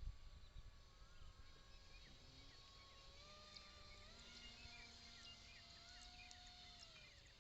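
Faint, distant whine of a radio-controlled model plane's motor, its pitch stepping up a few seconds in and sliding down near the end. Short bird chirps come and go over a low rumble.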